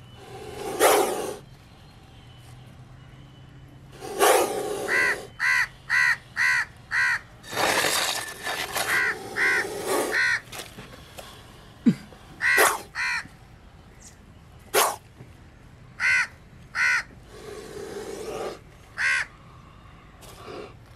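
Crows cawing in runs of short, harsh calls, four or five in a row at a time. Between them come a few louder bursts of rough, hiss-like noise.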